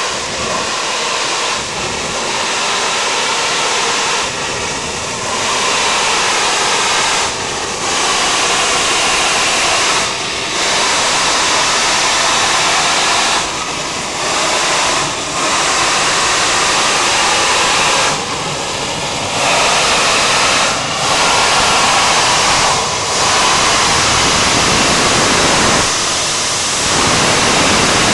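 High-pressure gas and crude-oil vapour blasting from a leak in a buried oil pipeline through a hole in the ground: a loud, steady rushing hiss that dips briefly in level several times.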